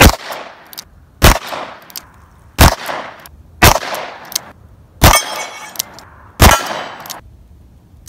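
Six shots from a Smith & Wesson Model 15-3 .38 Special revolver, fired about one every second and a half, each sharp crack followed by a short ringing tail, with fainter clicks between the shots.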